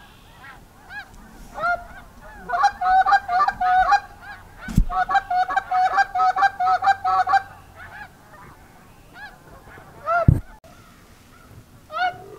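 A flock of snow geese calling overhead: many short, high honks in quick succession, densest in the middle, thinning to single calls near the end. Two dull low thumps break in, the louder one about ten seconds in.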